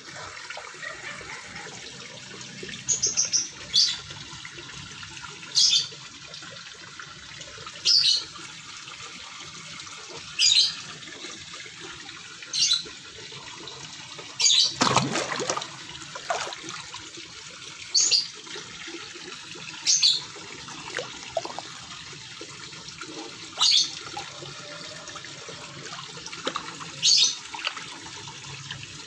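Pond water churning and splashing as redtail catfish take food at the surface, with one bigger splash about halfway through. A short high chirp repeats every two to three seconds over it.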